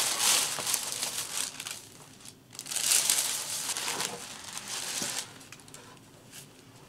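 Rustling and crinkling of packaging and a cotton dust bag as a boxed handbag is lifted out and handled: two louder bouts of rustling, the second starting nearly three seconds in, then softer handling noise.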